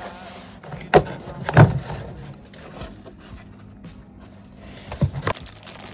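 Cardboard egg carton handled on a table and opened: two sharp knocks about a second in, then rubbing and scraping of the carton, and two more knocks near the end.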